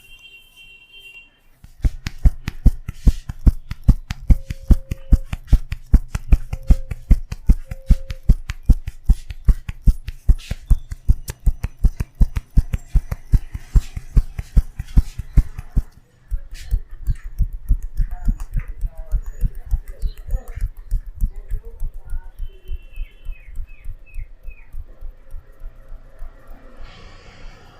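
Rapid, rhythmic tapping of hands on a person's head in a tapping head massage. The strikes run steadily, stop briefly about three-quarters of the way through the first half, then resume and gradually get softer.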